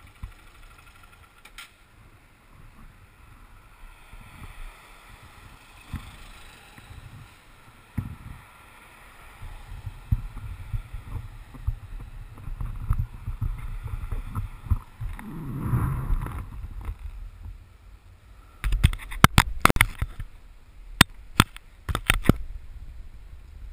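Motorcycle ridden in traffic: a low engine rumble under rushing wind noise, with a glide down in pitch about three-quarters of the way through. A quick run of sharp knocks and clicks fills the last five seconds.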